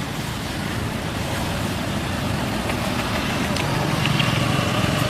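A steady low rumbling noise that grows slowly louder, with a few faint ticks near the end.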